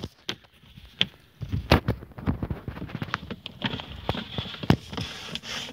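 Footsteps and rustling in dry grass with handling noise: a run of irregular soft knocks and crackles.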